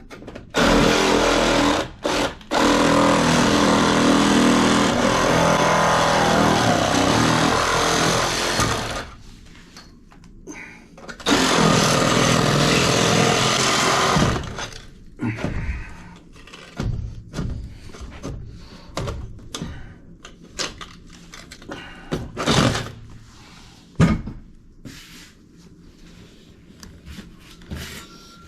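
A power saw runs in two long cuts, about eight seconds and then about three, trimming material away, followed by scattered knocks and clatter of handling tools and pipe.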